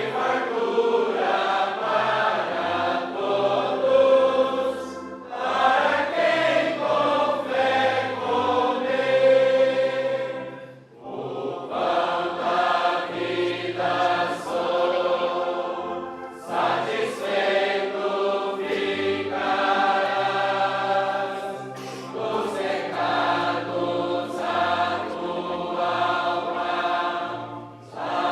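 A choir singing a hymn in phrases with short pauses between them, over low sustained accompaniment.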